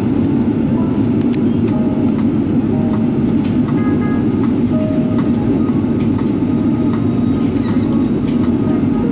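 Steady cabin noise inside an Airbus A380 during its descent: an even rumble of engines and rushing air.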